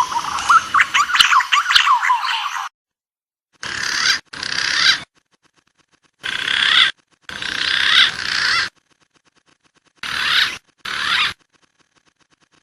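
Recorded wild pigeon calls from a bird-lure track. A flurry of overlapping whistled notes is followed by three pairs of short, harsh calls, each broken by sudden silence.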